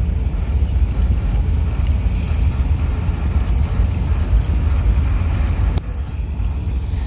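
A work train of rail-carrying flatcars rolling slowly past on new track: a steady rumble of wheels and bogies, with wind on the microphone. A single sharp click about six seconds in.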